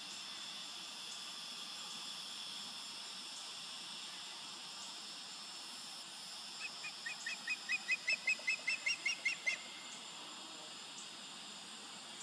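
Osprey calling: a rapid run of short, high whistled chirps, about five a second, growing louder over some three seconds, starting about halfway through.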